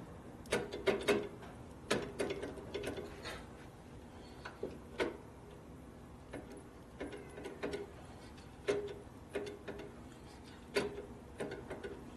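Irregular mechanical clicks and knocks, some with a brief low squeak, from pumping the motorcycle's hydraulic brake master cylinder to build pressure while bleeding air out of the brake line.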